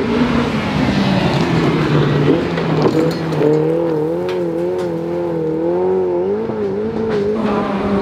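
Rally car engine running hard under power. Through the middle its pitch wavers up and down about once a second as the revs rise and fall, with a few sharp clicks.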